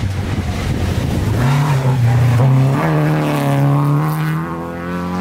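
Rally car engine running hard under acceleration as it passes close by, its note climbing in steps as the revs build.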